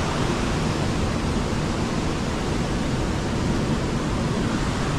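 A waterfall running high after two days of rain: a steady, even rush of water.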